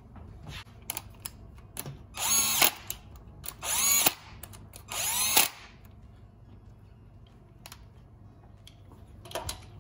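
Power drill running the camshaft sprocket bolts on an LS V8 engine block in three short whirring bursts of about half a second each. Each burst spins up quickly. A brief fourth run comes near the end, with light clicks of socket and bolts in between.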